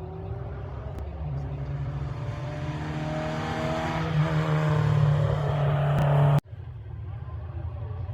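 Racing engine of a classic hill-climb competitor accelerating past, its note rising slightly and growing louder, then cut off abruptly about six seconds in, giving way to a lower engine rumble.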